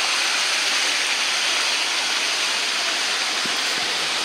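Mountain torrent rushing steadily over rocks.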